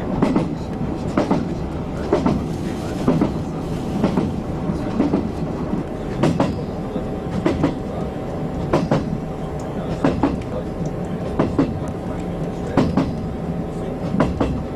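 Diesel passenger train running at speed, heard from inside the carriage: a steady rumble and hum, with a clickety-clack of wheels over rail joints repeating about every second and a quarter.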